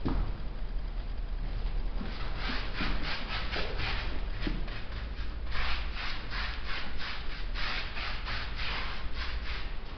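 Brush rasping back and forth over a wall coated with sand-textured decorative paint, in quick scratchy strokes about three a second with short pauses between runs.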